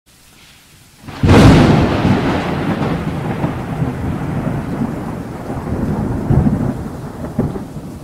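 A sudden thunderclap about a second in, decaying into rolling thunder with the hiss of rain, and a couple more rumbles near the end.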